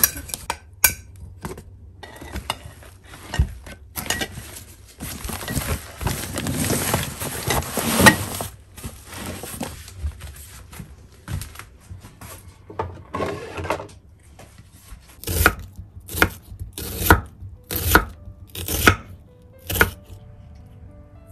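Irregular rustling and handling noises of items being put away. Then a kitchen knife slicing a red onion on a wooden cutting board: six crisp cuts, a little under a second apart.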